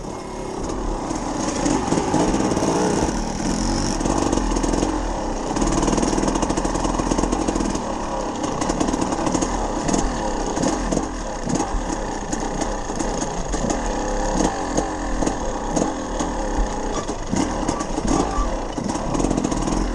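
KTM EXC 300 two-stroke enduro motorcycle engine running under way, rising and falling with the throttle, with frequent knocks as the bike rides over a rough, rocky trail.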